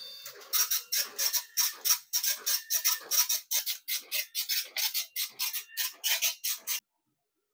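Compuprint SP40 Plus dot-matrix passbook printer drawing in a passbook, then printing it line by line. The print head makes an even run of short bursts, about three a second, that stops suddenly near the end.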